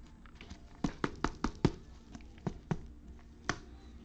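A trading card in a soft plastic sleeve being handled and slid into a rigid plastic holder by gloved hands: a quick run of sharp plastic clicks and taps about a second in, then three more single clicks spaced out.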